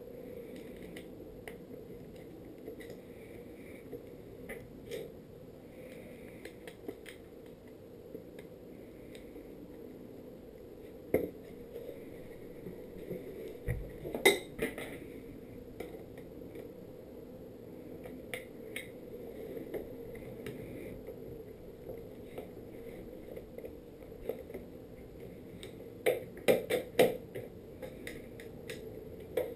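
Scattered clicks and knocks from handling a skateboard's deck, trucks and a metal skate tool, over a steady low hum. There is a louder knock about eleven seconds in, another about fourteen seconds in, and a quick run of knocks near the end.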